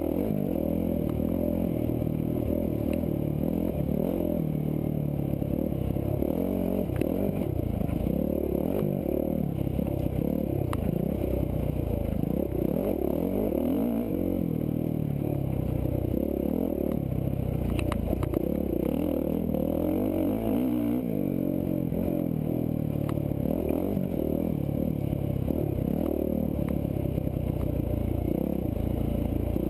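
Dirt bike engine running as the bike is ridden over a rough trail, its pitch rising and falling with the throttle, with a few sharp clicks and clatter over it.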